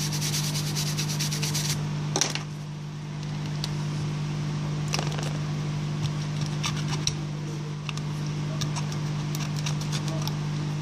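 Quick scratchy scrubbing for about two seconds as a small brush is worked over the phone's display frame, then scattered small ticks and crackles as old adhesive is picked and peeled off the frame edge.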